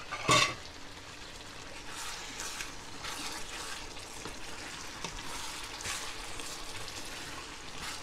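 Chicken in tomato sauce sizzling and crackling in a hot pan. There is a single sharp knock about a third of a second in.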